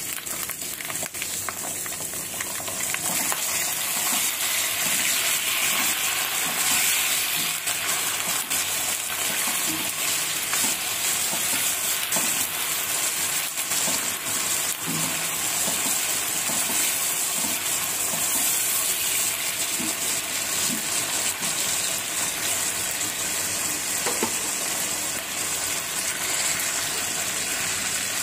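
Sliced onions with ginger-garlic paste and onion paste sizzling in hot oil in a metal karahi while being stirred with a spatula. The frying hiss is steady and grows louder about three seconds in, with faint ticks from the stirring.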